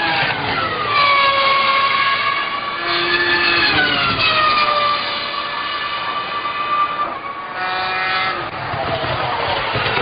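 McLaren MP4 Formula 1 car's 3.0-litre Mercedes V10 at racing speed, a high-pitched engine note that falls and climbs again several times as the car brakes, changes gear and accelerates through corners.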